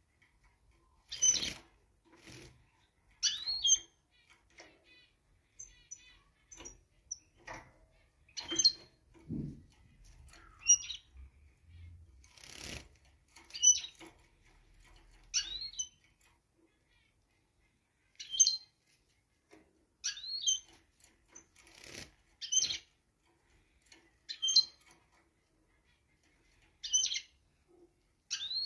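Caged finches, a European goldfinch and a greenfinch, giving short high chirping call notes, one about every one to two seconds, with a few wing flutters and knocks as they move about the cage.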